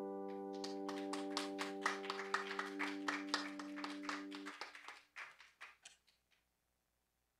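The last chord of a song on a plucked string instrument rings out and dies away about four and a half seconds in. Over it, a small group claps; the applause thins and stops about a second later.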